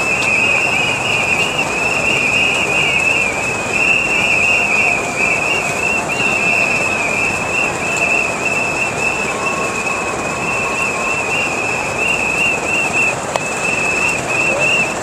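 Many whistles blown together in a steady, wavering shrill din over the general noise of a crowd.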